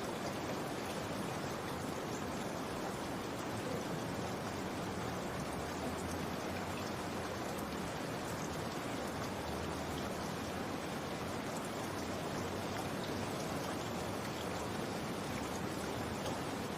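Steady rain with fine drops pattering, an even, unchanging rain ambience.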